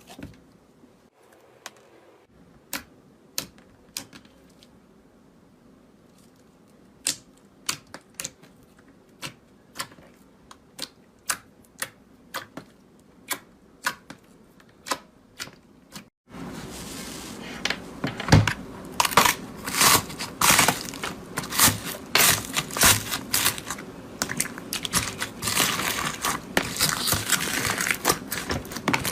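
Slime being squeezed and pressed, air pockets popping in sharp, separate clicks about once a second. About halfway through it switches abruptly to a louder, dense run of crackling and clicking.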